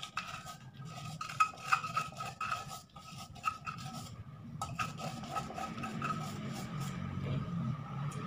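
A small plastic bag crinkling and rustling as it is handled and opened by hand, in a run of sharp crackles and clicks. A faint steady high tone runs underneath.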